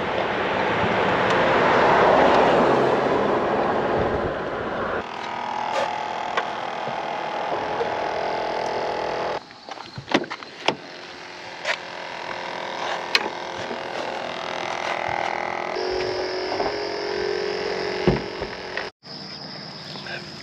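Car driving, its steady road and engine noise loudest for the first few seconds, then quieter; after that a car door is handled, with several sharp clicks and knocks.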